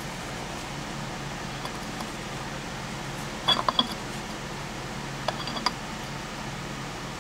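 Small metal parts clinking against each other in two brief clusters, a few sharp light clinks each, over a steady low hum.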